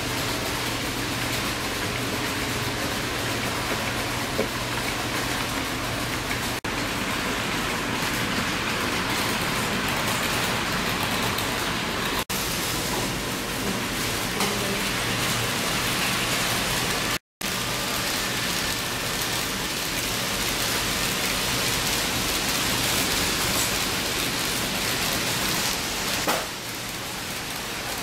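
Steady rushing whir of model trains running on the layout's track, wheels and motors rolling continuously, broken off briefly a few times.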